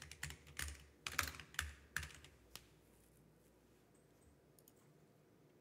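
Typing on a computer keyboard: a quick run of keystrokes for about two and a half seconds, then it stops, leaving only a couple of faint clicks.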